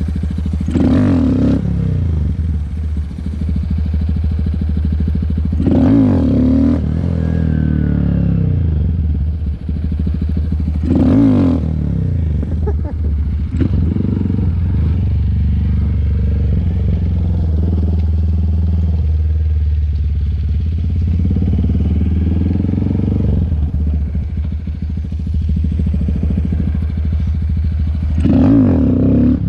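Honda Grom's single-cylinder engine running continuously, with four short, louder surges: about a second in, around six and eleven seconds, and near the end. It is being ridden for wheelies on a worn-out clutch.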